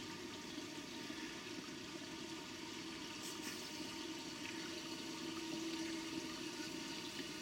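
Steady rush of pond water heard through a submerged camera, with faint steady tones underneath, getting a little louder in the second half.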